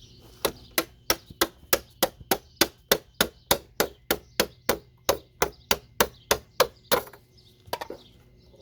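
Hammer tapping along a motherboard's RAM slot to knock it off the board: a rapid, even series of about twenty sharp strikes, roughly three a second, that stops about seven seconds in, with a couple more taps near the end.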